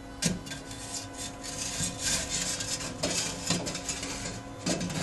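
Microwave oven running with a steady hum, melting aluminium, over irregular rubbing and scraping noise with short clicks.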